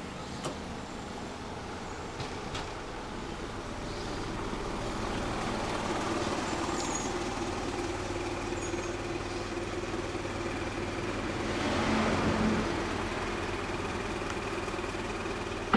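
Yamaha Cygnus-X FI scooter's single-cylinder four-stroke engine idling steadily through its exhaust, with a louder swell about twelve seconds in.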